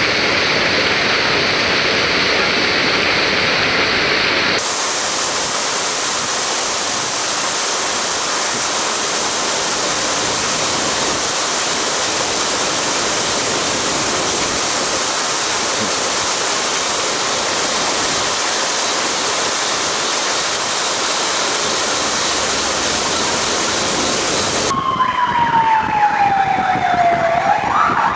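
A loud, steady hiss like rushing water, which changes abruptly to a brighter hiss about five seconds in. Near the end comes a siren wail that slides slowly down in pitch and then sweeps quickly back up.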